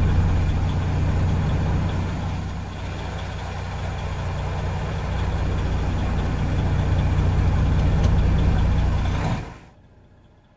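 Semi truck's diesel engine idling, a steady low rumble that eases slightly a few seconds in and cuts off suddenly near the end.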